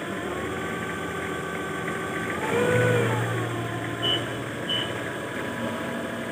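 Forklift engine running steadily, swelling up and back down briefly a little under halfway through as the operator works the lift. A few short high beeps sound near the end.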